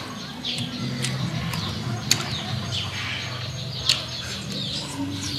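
Birds chirping over and over in short falling calls, with two sharp clicks, about two and four seconds in, standing out above them.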